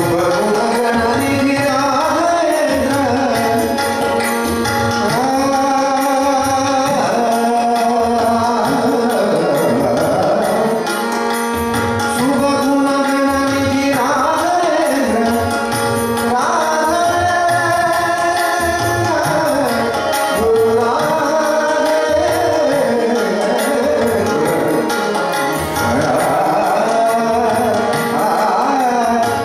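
Live Indian devotional bhajan: a male voice sings a flowing melody, accompanied by tabla, harmonium and bamboo flute.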